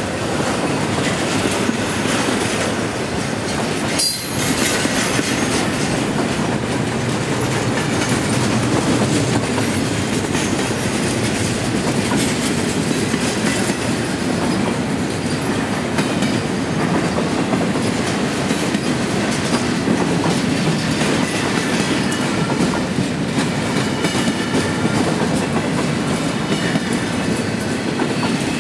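Double-stack intermodal freight cars rolling past, their steel wheels rumbling and clicking steadily on the rails. There is a brief high squeal about four seconds in.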